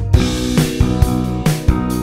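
Music with a steady drum-kit beat over sustained instrumental chords, the full band having just come in.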